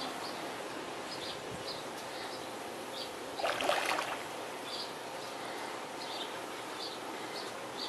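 A hooked tambaqui splashing at the surface of the pond once, about three and a half seconds in, for under a second, over steady outdoor noise with short high chirps repeating.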